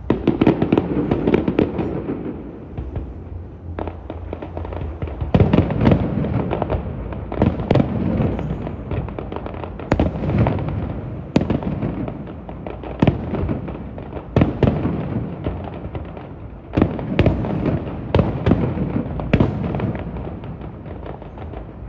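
Aerial fireworks going off in a rapid run of loud bangs, one every second or so, each followed by a rolling rumble.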